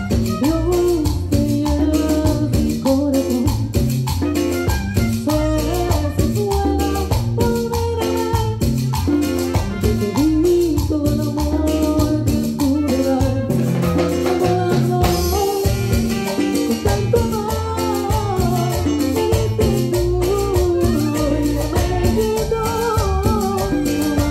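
Live Latin band playing a cumbia, with a saxophone melody over congas, timbales, bass and shaken hand percussion. A crash sounds about fifteen seconds in.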